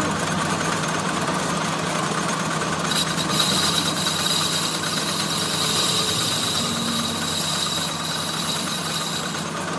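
Metal lathe running with a motorcycle wheel hub spinning in its chuck, a steady machine hum. About three seconds in, the cutting tool bites into the hub's centre bore and a high, steady cutting whine with a hiss joins the hum, lasting until just before the end.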